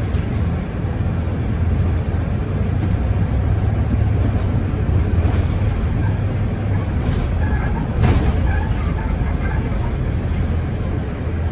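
Mercedes-Benz Citaro city bus running, with a steady low engine hum and road noise. There is a single knock about eight seconds in.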